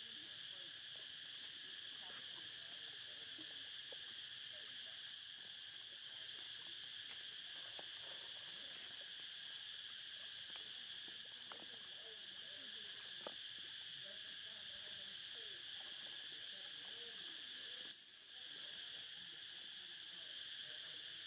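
Steady, high-pitched drone of an insect chorus, unbroken for the whole stretch, with a short crackle and brief dropout about three quarters of the way through.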